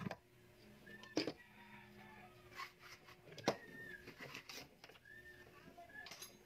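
Plastic clip fan and its cord being handled: a few sharp clicks and knocks, the loudest about three and a half seconds in.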